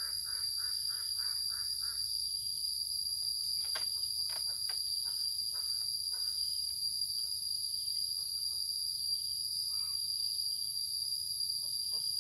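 Steady high-pitched insect chorus, with a quick run of repeated chirps in the first two seconds and a few light clicks and knocks scattered through.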